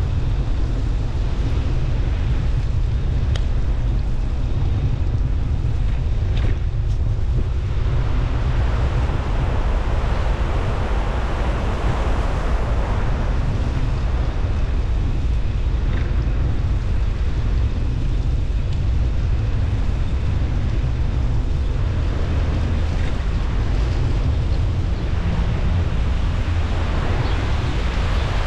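Wind buffeting the microphone of a camera riding on a moving bicycle: a steady low rumble with a hiss above it that swells and fades, and a few faint ticks.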